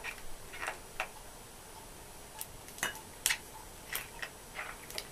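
Light, irregular clicks and taps of small objects being handled by hand over a bowl of paint, about one or two a second.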